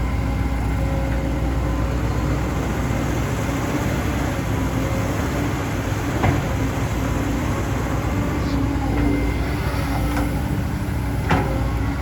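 Diesel engine of a CAT 320D2 GC excavator running steadily at working speed, with two sharp knocks, one about six seconds in and one near the end.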